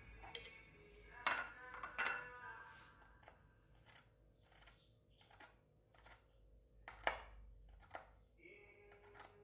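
Kitchen knife chopping peeled garlic cloves on a wooden cutting board: sharp knocks of the blade on the wood, two louder ones in the first two seconds, then a steady run of about three every two seconds.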